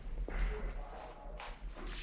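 Workshop handling noises from a person working at a motorcycle lift: a light click about a quarter second in, then rustling and shuffling, with a brief sharper scuff around a second and a half in.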